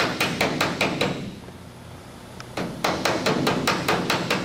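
Body hammer striking sheet-metal body panel in quick even blows, about five a second, with a pause of a second and a half in the middle. This is hammer-and-dolly work tightening a panel to take out tin-canning (oil canning).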